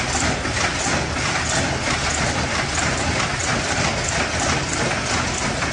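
Rotary packing machine running: a steady mechanical clatter with a light rhythmic click about twice a second.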